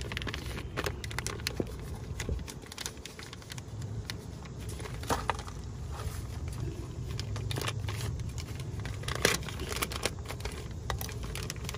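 New brake pad wear sensor being unwrapped: plastic packaging crinkling and tearing in irregular crackles, over a steady low background hum.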